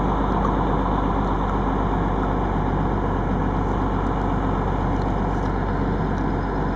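1982 Cummins 290 turbo diesel, an inline-six, running steadily in a bus with no clear rise or fall in engine speed.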